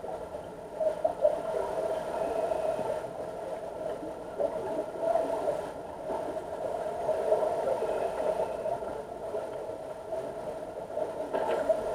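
Underwater sound of a diving pool picked up by a submerged camera: a steady muffled hum with gurgling from divers' rising bubbles, swelling and easing now and then.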